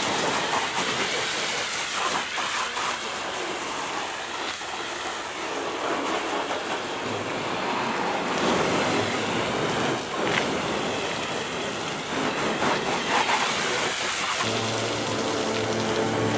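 Water spraying steadily onto a truck's bodywork as it is rinsed down, a rough hiss that rises and falls as the spray moves. Music comes in near the end.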